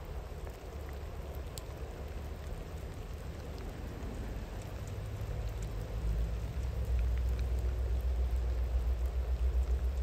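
Steady rain falling, with scattered drop ticks, over the low rumble of a distant train, which grows louder from about halfway through.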